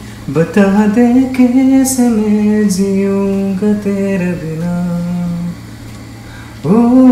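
Background song: a voice singing long, sliding held notes with guitar accompaniment. It drops quieter to one low held note for about a second near the end, then comes back strongly.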